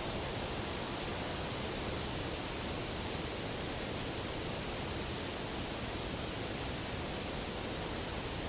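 Steady, even hiss with no knocks, calls or other distinct sounds in it.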